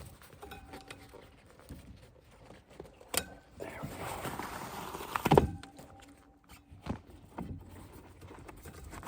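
A bicycle-type tire and inner tube being worked onto a garden cart wheel rim by hand: scattered knocks and clicks, then a rubbing scrape of rubber against the rim for a couple of seconds around the middle, ending in a loud thump.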